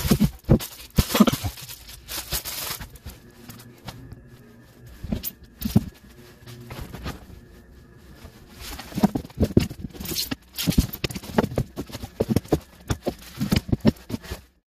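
Irregular clusters of knocks, clicks and rustles from handling and fitting the molded under-floor luggage tray in a Chevrolet Trax Crossover's cargo area, thickest over the last five seconds.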